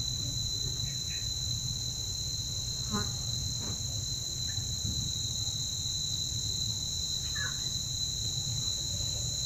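Steady chorus of insects: a continuous high-pitched ringing tone with a broader high hiss above it, over a low rumble.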